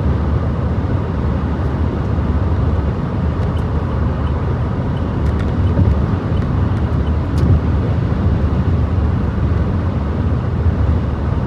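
Road and wind noise inside a car driving on a freeway in high wind: a steady low rumble.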